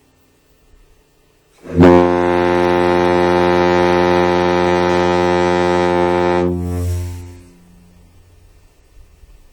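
SS Norway's typhoon ship's horn sounding one long, deep blast, rich in overtones. It starts about two seconds in, holds steady for about five seconds and then dies away.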